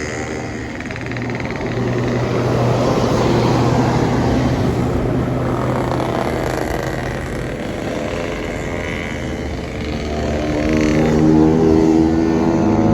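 Buses driving past on the road, their engines running, the sound swelling twice as vehicles go by.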